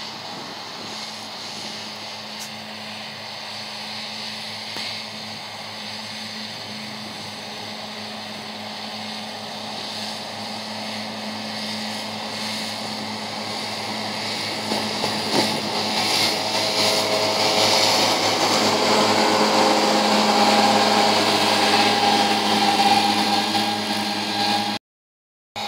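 John Deere 6930 tractor's six-cylinder diesel and its Kuhn front-and-rear disc mower combination running steadily while cutting hay. The sound grows louder as the rig approaches, then drops out abruptly near the end.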